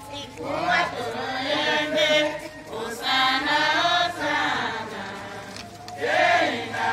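A group of Tiv singers chanting a hymn together in loud sung phrases with short breaks between them.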